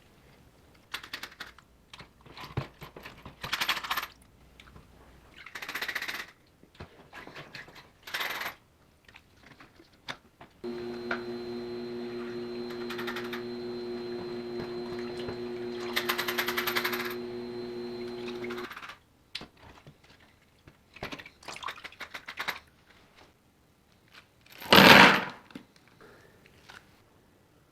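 Small metal parts being handled, with scattered clicks and rattles, and a small electric machine humming steadily for about eight seconds in the middle before switching off. A single louder, short scrape comes near the end.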